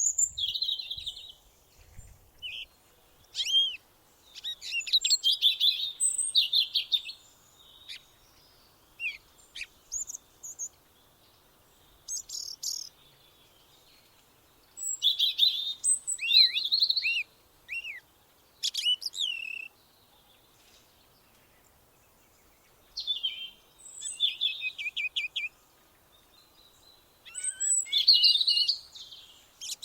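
Songbirds singing in short bursts of quick high chirps, sweeping notes and trills, with pauses of a second or more between phrases.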